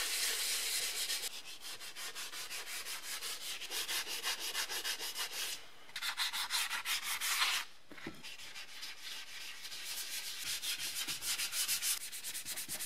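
600-grit soft foam sanding pad rubbed by hand over dried high-build primer, flattening it before the final paint: quick, rhythmic back-and-forth scraping strokes, breaking off briefly twice.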